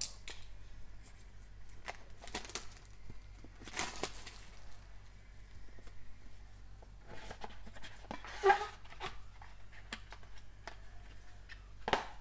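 Plastic wrap being torn off a sealed Panini Court Kings trading-card box and the cardboard box opened and handled: intermittent rustling, crinkling and light taps, with a louder rustle about eight and a half seconds in and a sharp click near the end.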